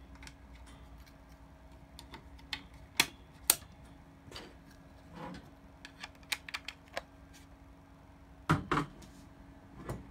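Irregular clicks and knocks from a small battery-powered desk fan's plastic housing and wire guard being handled and turned. Two sharp clicks come about three seconds in and a double knock near the end, over a faint steady hum.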